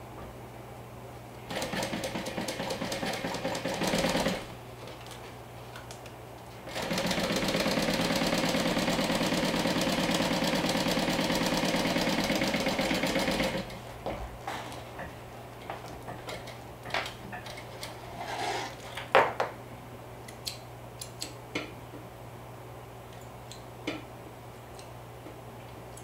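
Industrial flatbed sewing machine stitching a zipper to a lining piece: a short burst of stitching about two seconds in, then a longer steady run of about seven seconds. Small clicks and rustles of fabric being handled follow once the machine stops.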